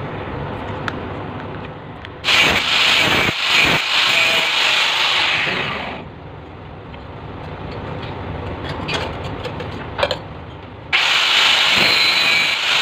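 Angle grinder with a cut-off disc cutting through a metal pipe for a P-trap extension, in two spells: from about two seconds in to about six seconds, and again from about eleven seconds on, with a quieter stretch between.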